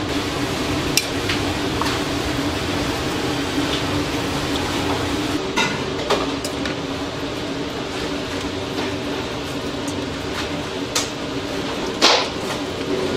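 Kitchen work sounds: a steady hum under scattered clicks and knocks of a plastic spatula and a knife against a steel bowl and a raw chicken being stuffed with rice, with one sharper knock near the end.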